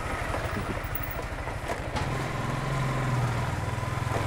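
Motorcycle engine running at low riding speed, a steady low hum with quick firing pulses that swells slightly partway through as the throttle opens, then eases.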